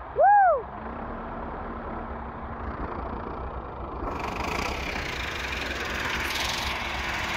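Massey Ferguson 260 tractor's three-cylinder diesel engine idling steadily, louder and brighter from about four seconds in. Just after the start, one short loud call rises and falls in pitch over the engine.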